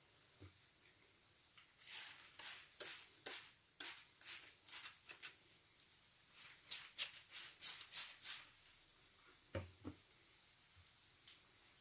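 A sponge full of washing-machine liquid suds being squeezed by hand: two runs of quick squelching, crackling squeezes, about ten in the first and seven in the second, then a single soft, lower bump near the end.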